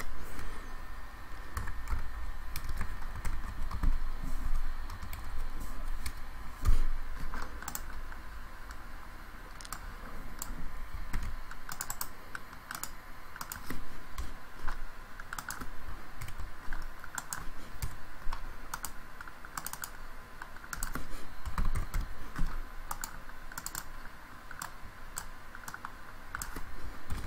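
Typing on a computer keyboard: irregular keystrokes in small clusters with short pauses. A low hum sits underneath for the first ten seconds or so.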